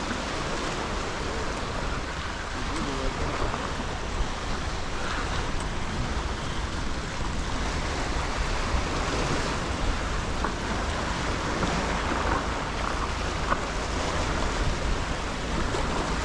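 Sea surf washing against the jetty rocks, a steady rush of water with wind rumbling on the microphone.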